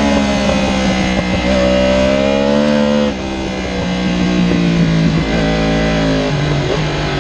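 Yamaha R1's crossplane inline-four engine heard onboard at racing speed, with wind noise. The engine pitch climbs, then drops suddenly about three seconds in as the throttle closes, and steps lower twice more as the bike slows into a corner.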